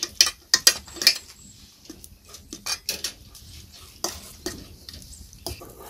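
A cooking utensil knocking and scraping against a pot while food is stirred, in irregular clicks that are loudest in the first second.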